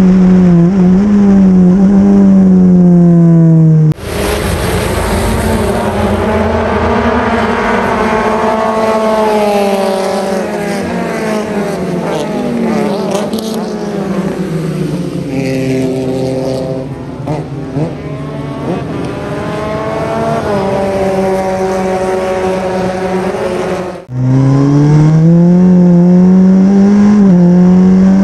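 Super FJ single-seater race car engines. For the first four seconds, and again after a sudden cut about 24 s in, one engine runs loud and close at steady high revs. In between, several cars are heard going by, their engine notes rising and falling over a hiss of noise.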